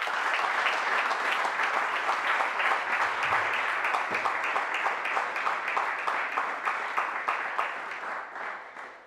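Audience applauding, a dense patter of many hands clapping, which dies away in the last second.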